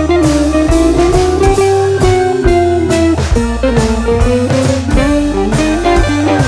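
Background music: a guitar-led, bluesy tune over a steady drum beat.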